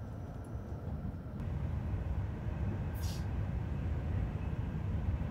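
Low, steady rumble of a Tohoku Shinkansen train running, heard from inside the passenger car, with a brief hiss about three seconds in.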